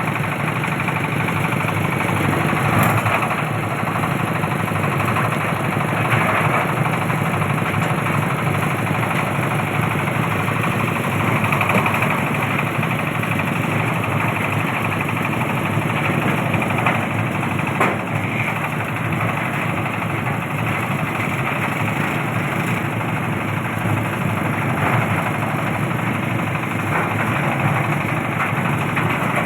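Engine-driven oil palm fruit stripping (brondol) machine running steadily, with a few faint knocks.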